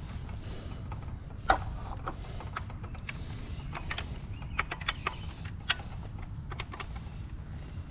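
Irregular clicks and knocks from hands working on strap fittings, the sharpest about a second and a half in, over a steady low rumble.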